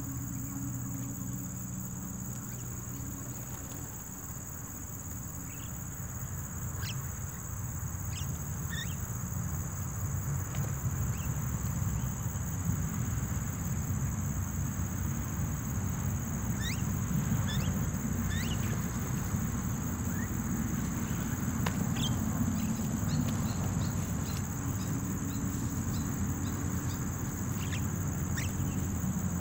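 Steady high-pitched insect drone with short, falling bird chirps scattered through it, more of them in the second half. Under them a low rumbling noise grows louder from about ten seconds in.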